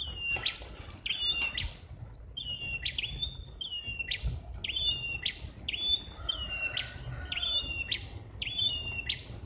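A prenjak kepala merah (red-headed prinia-type songbird) calling loudly in full song: one short, high, slightly falling note repeated steadily, about three every two seconds.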